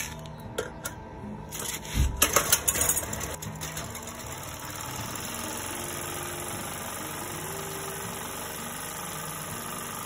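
Sumec Firman 2.8 kVA generator's small single-cylinder engine being started: a few clicks, a loud burst as it fires about two seconds in, then running steadily at an even pitch. Its exhaust has been freshly welded to cure the noise, and the owner calls the sound now cool.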